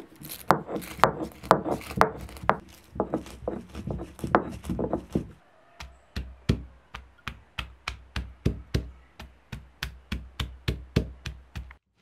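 Stone roller pounding garlic and whole spices on a flat grinding stone: repeated knocks of stone on stone. The strikes come irregularly at first, then after a short pause settle into an even beat of about two or three a second.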